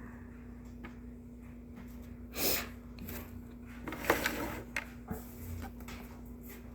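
Quiet handling of trading cards: a short sniff about two and a half seconds in, then small clicks and rustles of cards being shuffled and flipped around four to five seconds in, over a steady low hum.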